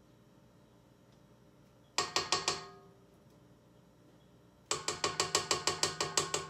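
A spatula tapped rapidly against a stand mixer's metal beater to knock off cookie batter, each tap ringing. A short run of about five taps comes about two seconds in, then a longer run of about a dozen taps, roughly seven a second.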